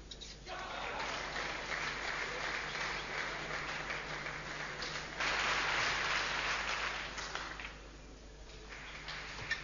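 Spectator crowd applauding a won point, starting about half a second in, growing louder about five seconds in, then dying away near the end.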